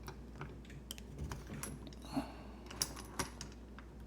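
Light metallic clicks and taps, about half a dozen spaced irregularly, from a Sargent Keso dimple lock and its picking tools being handled just after the lock has been opened. There is a brief scrape about two seconds in, and the loudest clicks come near three seconds in.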